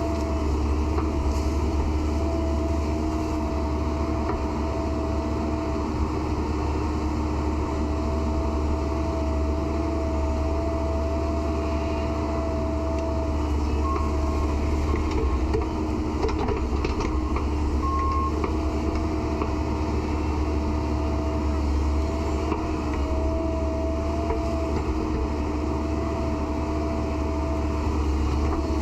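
Excavator's diesel engine running steadily, a heavy low rumble with a steady high whine over it.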